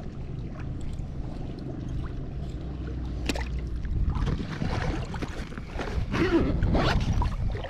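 Wind buffeting the microphone over choppy water lapping against an inflatable float tube, with louder splashing in the second half.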